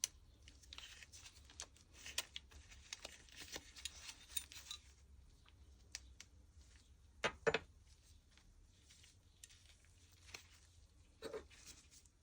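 Faint, scattered clicks and light handling noises from small parts being worked by hand, with two louder clicks in quick succession about seven seconds in and another near the end.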